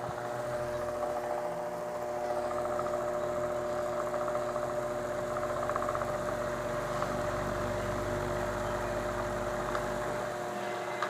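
Arge Twister 50 cm wall fan running, its electric motor giving a steady hum with several steady tones.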